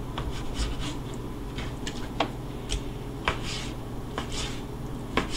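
Kitchen knife cutting raw chicken breast into small pieces on a plastic cutting board: irregular sharp taps of the blade striking the board, with short slicing scrapes between them.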